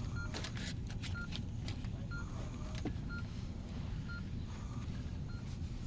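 Intensive-care medical equipment beeping: short, high electronic beeps at a fixed pitch, about one a second, over a steady low hum, with a few soft clicks and knocks.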